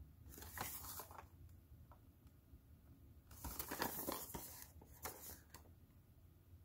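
Product packaging handled in the hands: two spells of rustling and scraping as the box is turned over, then a few light taps near the end.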